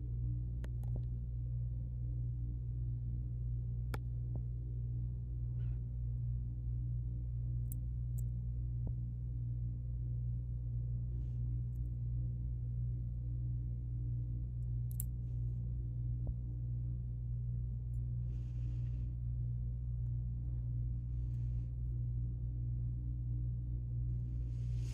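A cat purring close to the microphone: a steady low rumble with no break, with a few faint clicks and soft short rustles over it.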